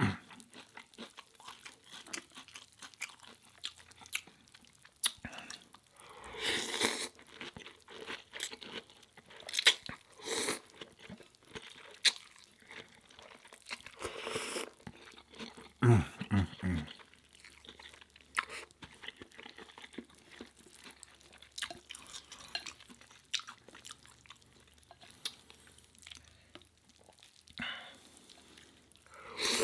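A person biting into and chewing crunchy rice-backed seaweed crisps close to the microphone: irregular crunches and mouth clicks, with a few louder bites along the way.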